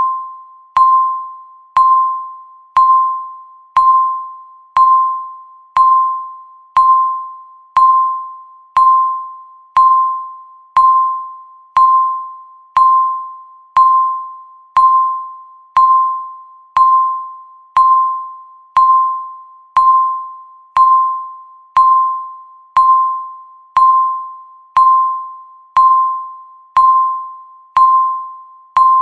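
Countdown timer's tick sound: a sharp click followed by a short ringing tone that fades away, repeating evenly once a second.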